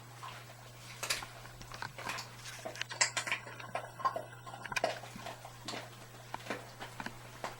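A dog chewing a hard dried sweet potato treat: irregular crunching and clicking bites.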